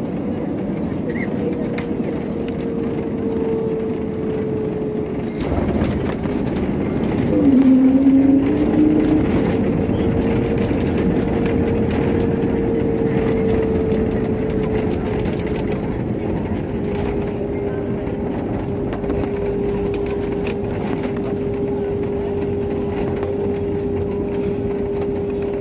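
Airliner cabin noise during the landing roll-out: a steady rush of jet engines and airflow with a humming tone that slowly drops in pitch. A knock comes about five and a half seconds in, then a louder surge for a second or two, before the noise settles back to a steady drone.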